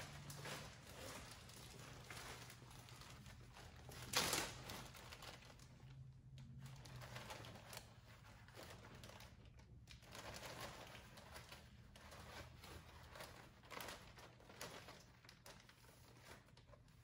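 Clear plastic zip-top bag rustling and crinkling as it is handled and items are pulled from it, in irregular faint bursts with one louder crinkle about four seconds in.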